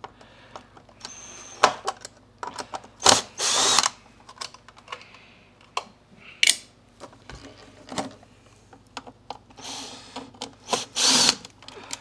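Cordless drill/driver backing screws out of a plastic vacuum cleaner housing: a few short bursts of the motor whining up, with clicks and knocks of plastic parts being handled in between.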